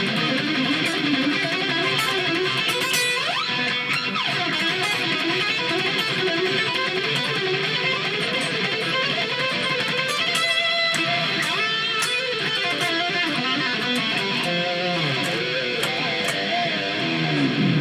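Electric guitar playing rock: a continuous line of notes with bends and slides in pitch.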